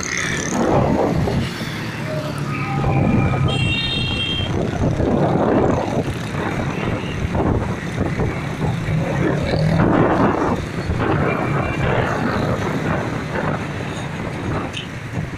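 Small motorcycle engine fitted with a home-made HHO (hydrogen) kit, running steadily under way, with gusty wind noise on the microphone and a brief high tone about three seconds in.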